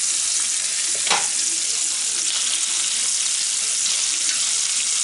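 Peeled shrimp sizzling in butter and olive oil in a frying pan, with a spatula stirring and turning them. There is one sharp knock about a second in.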